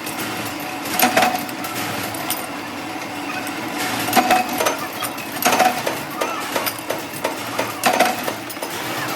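Workshop machinery running steadily with a low hum, broken by four louder knocks with a brief ring at irregular intervals, as from metal parts being struck or handled.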